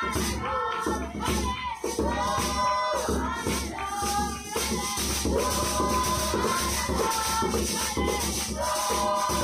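A group of women singing together, with the shaking of rattles worn on the dancers' legs keeping a steady beat as they stamp.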